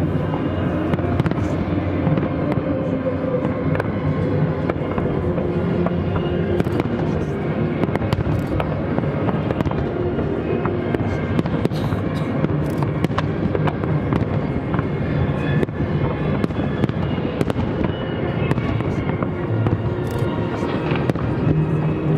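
Aerial fireworks going off in a dense, unbroken run of bangs and crackles, with music playing underneath.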